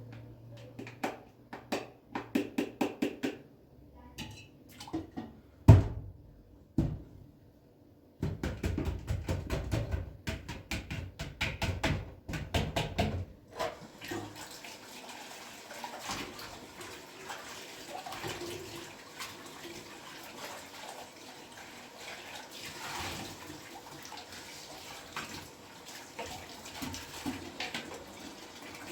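Quick runs of knocks and taps, about five a second, for the first half, then water running steadily from a tap.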